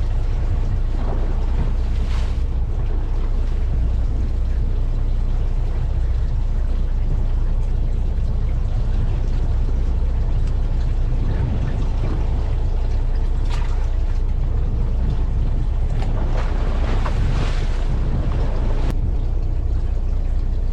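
Fishing boat's engine running with a steady low drone, with a few light clicks and knocks on board.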